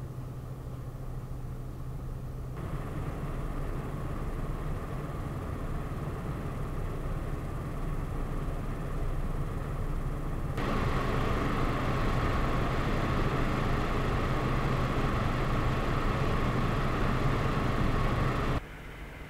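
Noiseblocker NB-eLoop X B14-P 140 mm fan on a radiator, its airflow rushing at about 830 RPM. About three seconds in it steps up to about 1090 RPM and gets louder. About ten seconds in it steps up again to full speed, about 1490 RPM, with a tone near 1 kHz over the rush, then cuts off abruptly near the end to a quieter fan.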